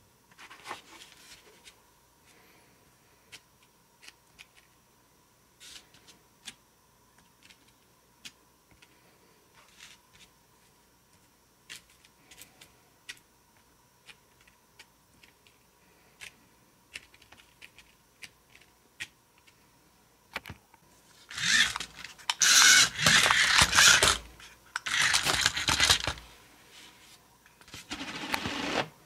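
Small plastic toy figures tapped and clicked down one at a time on a tabletop, then, about twenty seconds in, a toy remote-controlled Lightning McQueen car driving in loud bursts and crashing into the figures, knocking them over.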